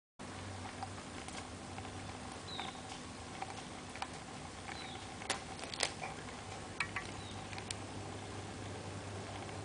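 A Maine Coon kitten's paws and claws clicking and tapping lightly on a wooden parquet floor as it scampers about dragging a feather boa. The light clicks come at irregular intervals over a steady low hum.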